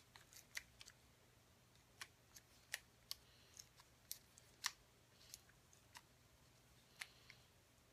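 Faint, irregular ratchet clicks of a torque wrench turning the cylinder-head stud nuts, on the second pass of the tightening sequence toward 54 foot-pounds. A faint low hum sits underneath.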